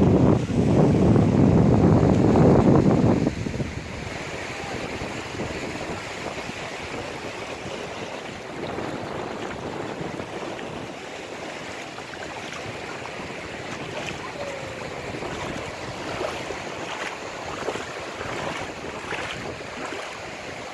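Wind buffeting the microphone for about the first three seconds, then small waves washing onto a sandy shore: a steady, soft surf.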